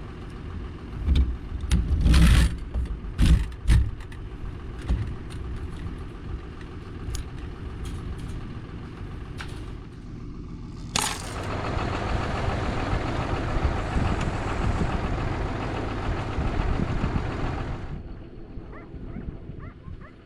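Tractor engine running steadily, with several sharp knocks and clanks in the first few seconds. From about halfway, a louder, fuller noise covers it for about seven seconds and then stops abruptly.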